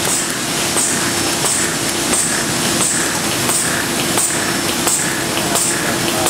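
Easel-assembly machine running in steady cycles: a constant hum with a click and a short air hiss about every 0.7 seconds.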